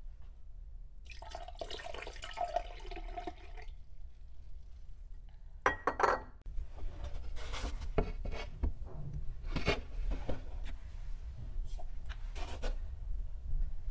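Milk is poured into a glass blender jug for about two and a half seconds, with a rising, ringing splash. A few sharp clinks and knocks of containers and utensils against the glass follow as more ingredients go in.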